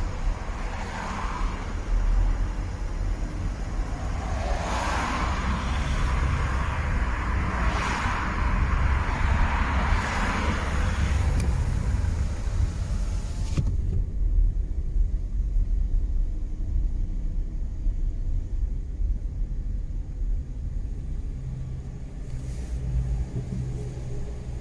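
Cabin noise inside a VW Golf Mk7 creeping along in queuing traffic: a steady low engine and road rumble with tyre hiss over it. About halfway through, the hiss drops away suddenly, leaving mostly the low rumble.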